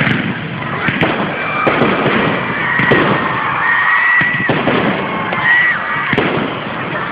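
Fireworks display: aerial shells bursting with several sharp bangs, and high whistling tones between them.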